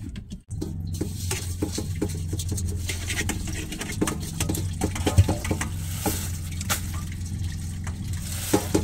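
Water being filled into a pot, with clattering as the pot and containers are handled. A steady low hum starts sharply about half a second in and runs under it until near the end.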